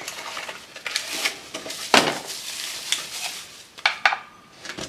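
Unboxing handling noise: a small cardboard box being pulled open and rustled, with scattered taps and knocks, the loudest about two seconds in.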